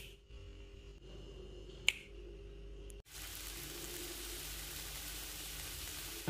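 A sharp finger snap about two seconds in, then from about three seconds in a faint steady sizzle of chicken pieces and green beans stir-frying in a nonstick pan with no oil.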